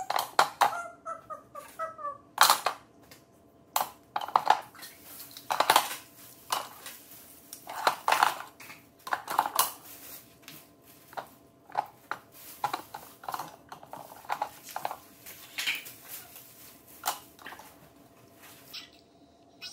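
Kitchen utensils (metal tongs, whisks, spatulas and ladles) clinking and knocking as they are dropped and shuffled one by one into a wooden utensil caddy on a stone countertop, in irregular clatters. There is a short squeaky falling whine about a second in.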